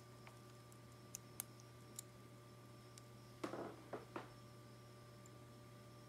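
Light plastic clicks from a Bakutech Killer Volca Bakugan figure as its parts are snapped open and shut by hand: a few single clicks, then a short cluster of clicks about three and a half seconds in, over a faint steady hum.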